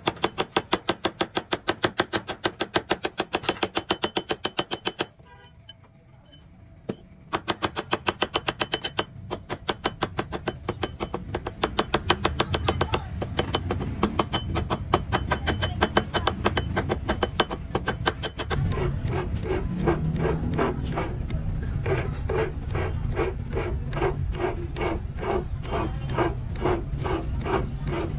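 A goldsmith's hand tools working a 24K gold ring, metal on metal: quick, regular strokes, several a second, with a light metallic ring. They stop for about two seconds near 5 s, then go on, and become denser and fuller in the last third.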